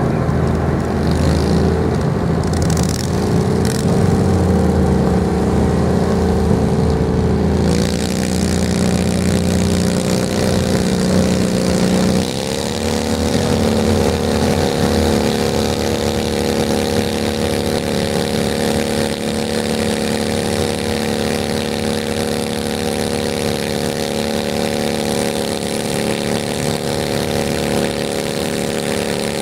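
Garden tractor engine running loud and steady, its pitch stepping up about eight seconds in and again about twelve seconds in; a hiss joins at the first step.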